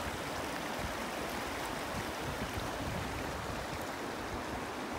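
Shallow mountain river running over rocks: a steady rush of water.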